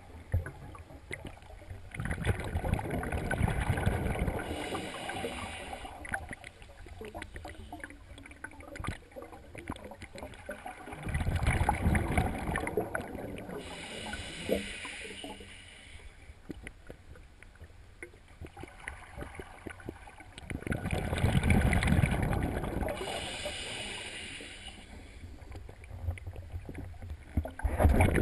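A scuba diver breathing through a regulator, heard underwater: exhaled air bubbling and rumbling out in long bursts every eight or nine seconds, with quieter stretches between breaths.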